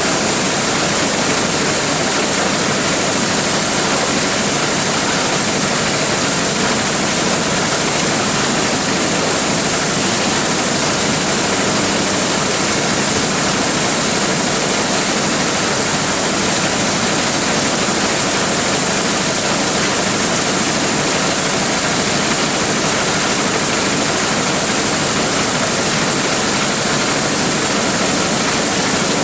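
Large engine-driven corn sheller running steadily: a loud, even rushing din with a strong high hiss.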